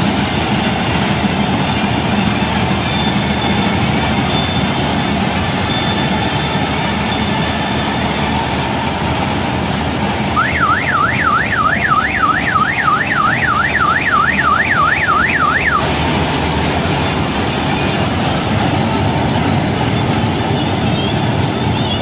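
Combine harvester running steadily while working the crop: a constant, loud din of engine and threshing machinery. About halfway through, a high warbling siren-like alarm sounds for about five seconds, its pitch going up and down about three times a second.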